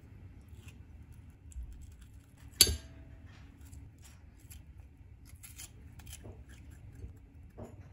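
A metal spoon scraping the pulp out of a halved tomato, with soft, scattered scrapes and clicks. About two and a half seconds in, the spoon strikes the glass bowl once with a sharp clink that rings briefly.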